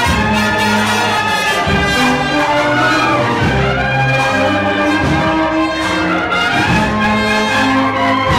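Spanish cornet-and-drum band (banda de cornetas y tambores) playing a Holy Week processional march live, with bugles holding loud chords that change every second or so over the drums.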